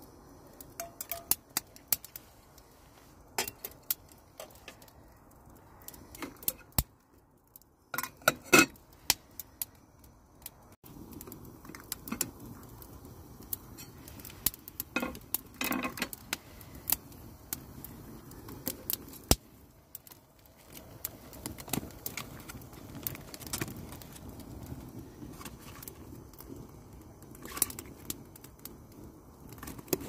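Light metal clinks and taps of a metal cup and chopsticks against an aluminium cooking pot, scattered irregularly, loudest around eight to nine seconds in, over a steady low sound from the steaming pot of rice porridge.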